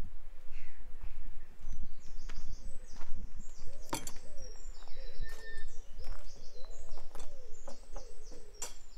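Birds calling: quick high chirping notes and a run of short lower calls that rise and fall, starting about two seconds in. Footsteps sound throughout over a steady low rumble.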